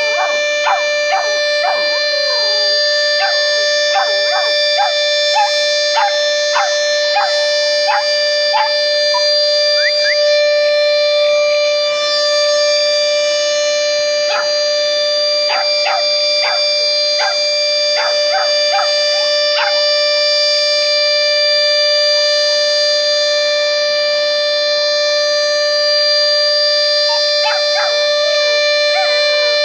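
Civil-defence air-raid siren holding one steady tone, sounded as the curfew signal. Dogs bark over it in spells of short calls, about two a second.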